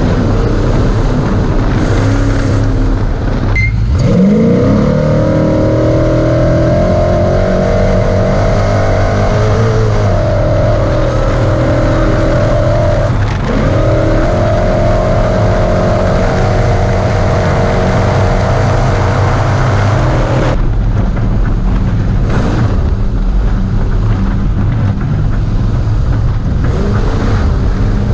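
Onboard sound of a Ford Ranger desert race truck at speed: its engine revs up a few seconds in and holds high revs, with a brief lift about halfway, then drops back about three-quarters of the way through, all over constant loud road noise.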